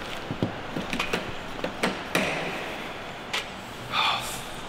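Car door handle pulled again and again, clicking and knocking without the door opening: the door is locked. A short burst of noise comes near the end.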